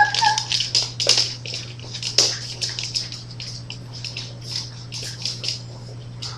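Dog claws clicking and scrabbling on a hardwood floor as two small dogs play, a quick irregular patter of sharp taps, busiest in the first half.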